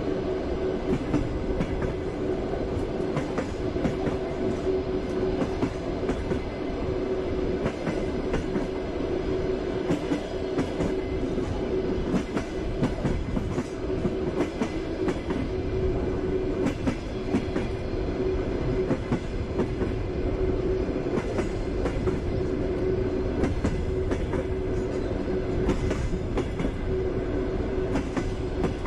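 Passenger train carriage running along the track: a steady rumble and hum, with the wheels knocking irregularly over the rail joints.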